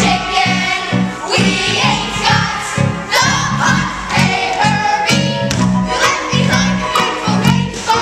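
Large ensemble of young performers singing a show tune together over live musical accompaniment, with a steady beat.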